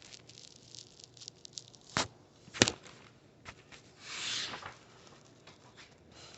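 Picture-book pages being handled and turned: light paper crackles, two sharp taps about two and two and a half seconds in, and a soft swish of a page a little after four seconds.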